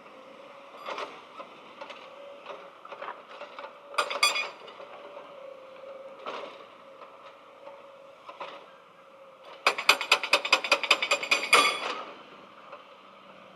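Scattered clicks and knocks over a faint steady hum, then, about ten seconds in, a fast run of sharp taps, roughly ten a second, for about two seconds.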